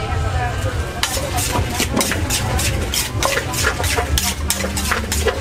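Cooking utensils clinking and knocking quickly and irregularly, about three to four strikes a second, starting about a second in, over a steady low hum.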